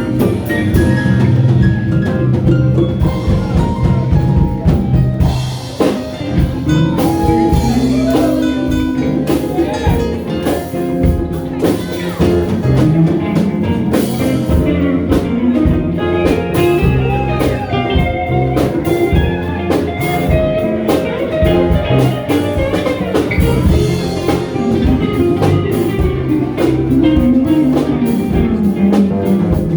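A ragtime band playing, with pitched instruments over a steady drum beat.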